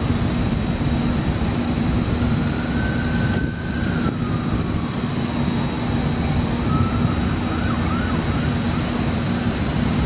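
Steady noise of city traffic and wind with a constant low hum, and a faint siren rising and falling a couple of seconds in and wavering again near the end.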